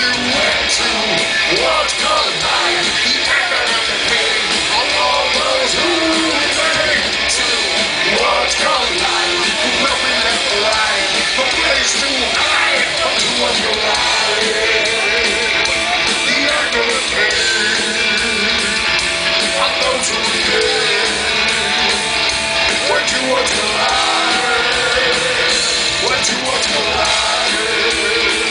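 Heavy metal band playing live: a singer over distorted electric guitar and drums with cymbals, loud and unbroken throughout.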